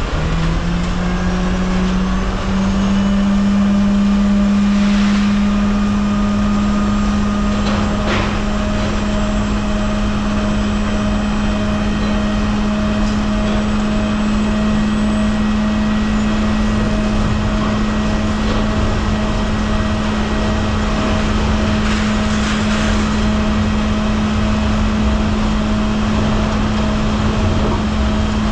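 Semi truck's engine running under way with road noise, a steady drone that rises in pitch over the first couple of seconds and then holds even.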